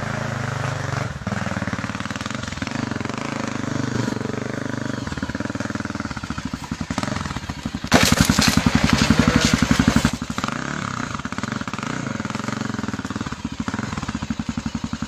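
Dirt bike engine running at low speed with an even, pulsing beat. It gets much louder for about two seconds near the middle, then settles back.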